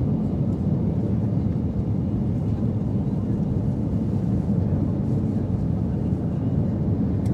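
Steady low rumble of a jet airliner's engines and rushing air, heard from inside the cabin at a window seat during the descent on final approach.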